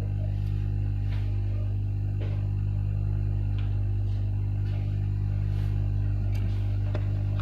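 Steady low electrical hum with even overtones, and a few faint light ticks now and then.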